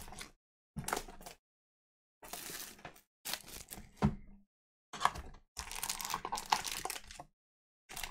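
Plastic trading-card pack wrapper crinkling and being torn open by hand, in a string of short rustling bursts with clean gaps between them.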